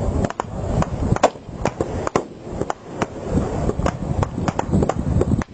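Sporadic small-arms gunfire: sharp cracks at irregular intervals, sometimes two in quick succession, over wind rumbling on the microphone.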